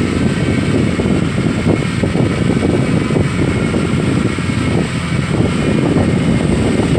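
Excavator's diesel engine running steadily, loud and low-pitched.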